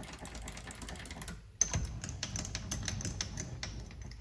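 Rapid, irregular metallic clicking and ticking as the mini lathe's carriage is moved along the bed, with one sharp knock about one and a half seconds in.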